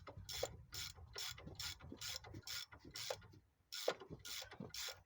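Ratchet wrench clicking in an even rhythm, about three clicks a second, with a short pause near the end, as a suspension bolt is worked loose.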